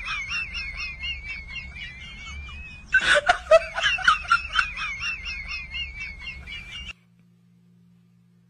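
Snickering, wheezy laughter with a high wavering tone over it, heard twice in a row. It cuts off suddenly about a second and a half before the end.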